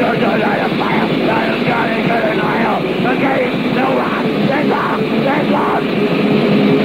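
Raw, lo-fi 1980s heavy metal demo recording: distorted guitars and drums playing steadily, with a harsh shouted vocal line over them.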